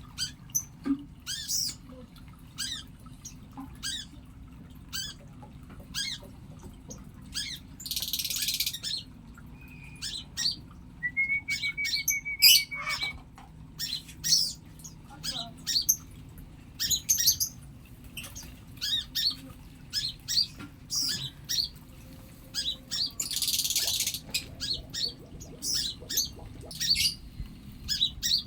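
Pleci (white-eyes) calling with many short, high chirps and squawks, with a brief even trill in the middle. Twice there is a harsh, hissy burst lasting about a second.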